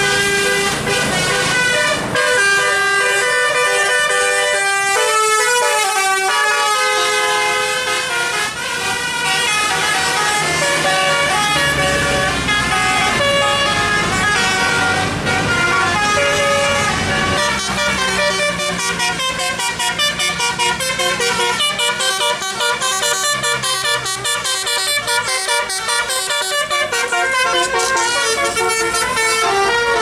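Tourist buses' musical "telolet" air horns playing tune after tune, short notes stepping up and down in pitch, with bus engines running underneath.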